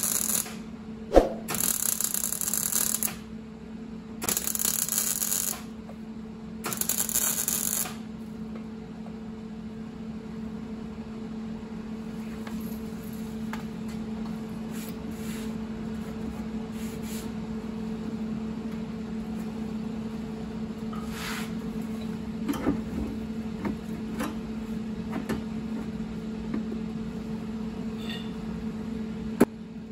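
MIG welder stitch-welding steel sheet into the rust-holed rear quarter panel at the wheel arch: four bursts of arc, each one to two seconds long, in the first eight seconds. After that only a steady low hum with a few light ticks and taps.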